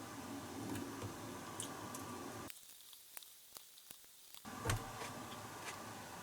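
Quiet room tone: a low steady hum with scattered small clicks. It cuts out for about two seconds partway through, and a single soft thump follows when it returns.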